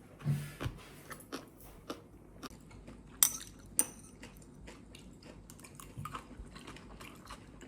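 Eating at the table: quiet chewing with scattered light clicks of utensils against dishes, and two sharper clinks about three and a half seconds in.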